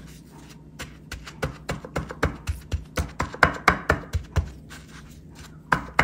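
Fingers pressing and patting starch-coated pork loin slices down onto a ceramic plate: a quick run of soft knocks, about four a second, with a pause before a few more near the end.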